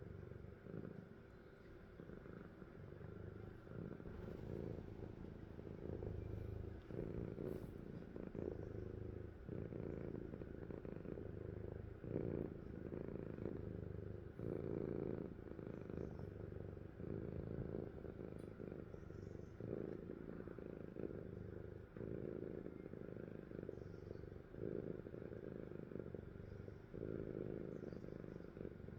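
A sleeping cat's low rumbling breath sounds, swelling and easing in a steady rhythm with each breath.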